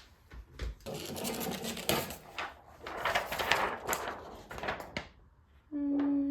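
Procolored K13 Lite DTF printer printing a test strip: the print carriage shuttles and whirs with a clattering mechanical run, then a short steady tone sounds near the end.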